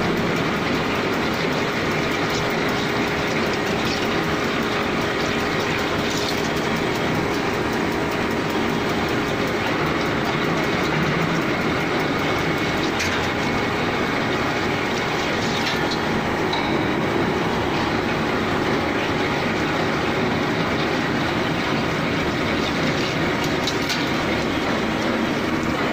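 CNC drilling machine running, its drill cutting into a metal workpiece clamped in a four-jaw chuck: a steady mechanical noise with a few sharp ticks scattered through it.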